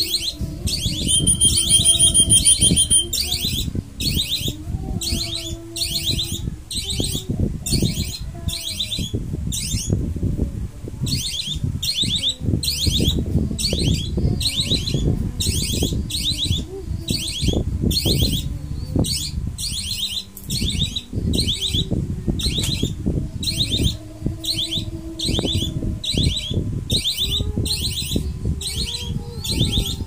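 A hand-held whistle blown in short, trilling blasts, about one and a half to two a second, pausing once about a third of the way in. Low rustling and knocking from handling runs underneath.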